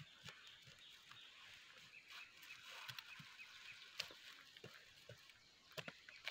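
Faint scrapes and taps of a farm knife's blade digging small planting holes in dry, stubbly soil, about a dozen soft, irregular strokes against near silence.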